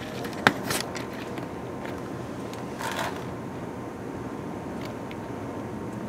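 A sharp click as the jumper wire is touched to the ground lead, then the faint, steady whir of the 2004 Ford F-150's electric fuel pump running, kind of hard to hear. The pump runs only when grounded by hand, which shows the fuel pump driver module is not sending the pump its ground.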